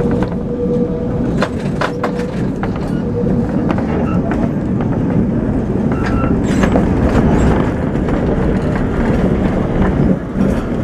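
Lisbon tram 28 streetcar running along street track, heard from on board: a steady rumble of wheels on rails with frequent clicks and knocks from the track and car body. A thin steady whine fades out after about three seconds.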